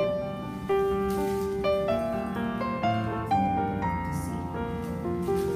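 Background instrumental music: a piano playing a melody of struck, held notes over chords.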